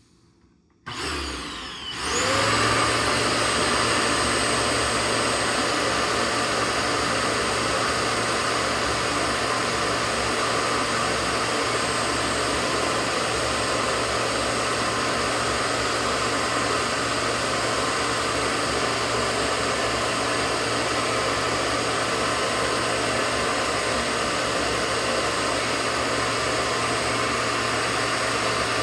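Hoover Powerdrive XL vacuum cleaner switched on about a second in: its motor spins up with a rising whine, then runs steadily with a loud rush of air.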